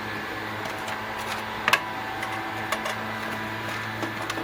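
A few sharp clicks and light knocks of parts being handled over a steady background hum, the loudest a quick double click a little under two seconds in.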